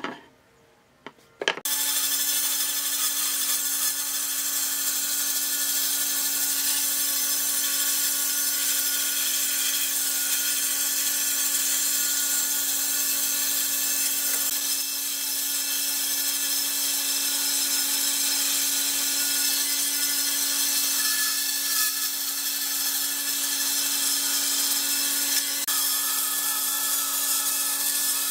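Bandsaw running and cutting through a softwood board: a steady hum from the machine under the hiss of the blade in the wood. It sets in abruptly about a second and a half in, after a few light taps.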